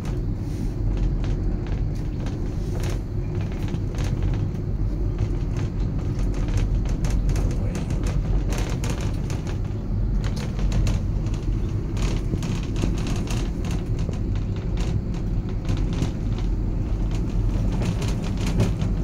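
Steady low ride noise inside a moving Ngong Ping 360 gondola cabin, with scattered light clicks and taps throughout.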